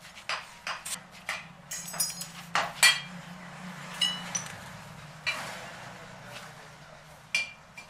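Steel shovel and tools scraping and clinking against a steel sand-casting flask as moulding sand is shovelled in and packed: a string of sharp clinks and scrapes, a few of them ringing briefly, the loudest about three seconds in.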